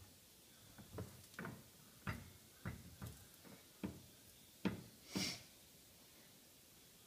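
A silicone spatula tapping and scraping sticky marshmallow-and-cereal mixture out of a pot into a glass baking dish. About eight soft, irregular knocks, with one longer, hissier sound about five seconds in.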